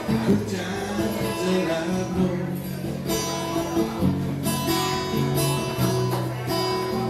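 Guitar playing live in a cover song: chords strummed and left to ring, changing every second or so.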